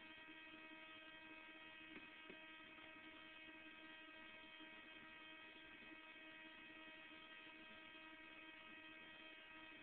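Near silence: a faint, steady electrical hum and whine, with two faint clicks about two seconds in.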